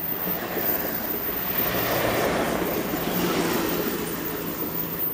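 Amtrak Pacific Surfliner bilevel passenger cars passing close by at speed: a steady rush of wheel and rail noise under a low hum, easing off near the end as the last car goes by.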